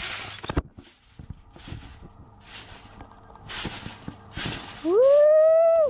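A few soft swishing bounces of someone jumping and flipping on a trampoline, then a boy's long 'woo!' near the end, rising in pitch and held for about a second.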